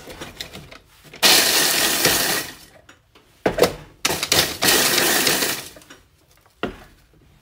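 Small electric food chopper pulsed twice, each burst of motor and blade noise lasting about a second and a half, chopping vanilla wafers into coarse crumbs. A few short knocks from the chopper's plastic parts come between the bursts and near the end.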